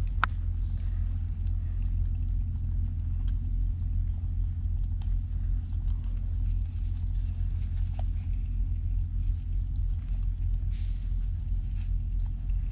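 Steady low rumble throughout, with a sharp click just after the start and a few faint clicks and rustles as a mud crab is bound with string by hand.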